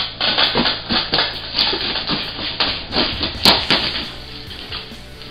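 Knife cutting and tearing through heavy layers of packing tape on a large shipping box, with irregular scrapes, rips and knocks against the box; the sharpest knock comes about three and a half seconds in.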